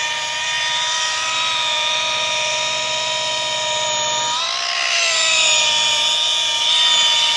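Handheld electric polisher running steadily with a pad on a soft Plexiglas window, polishing out sanding marks with compound. It gives a steady whine that briefly rises in pitch about four seconds in, then settles back.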